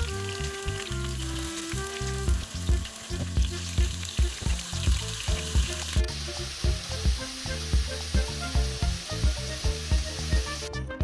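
Food sizzling in a frying pan, a steady hiss over background music with a regular beat.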